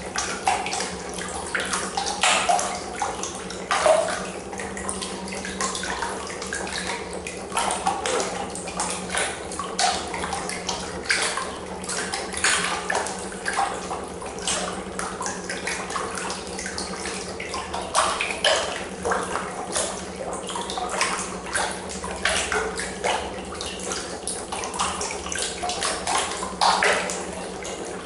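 Water splashing and churning irregularly in a plastic tub, thrashed by a homemade neodymium-magnet piston engine driven by a copper coil, with a steady low hum underneath.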